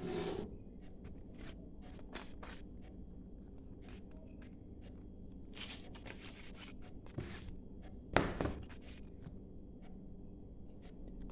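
Scattered light clicks and knocks of things being handled in a room, with a louder thump about eight seconds in.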